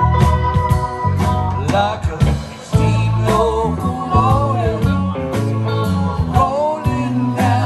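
A live rock band playing: electric guitars, keyboards, bass and drums, with the drums beating steadily.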